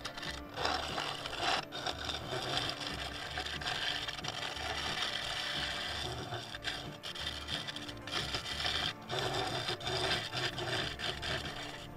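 Claret ash bowl spinning on a wood lathe while a turning tool cuts into its interior: a dense scraping hiss of wood being cut, with a few short breaks.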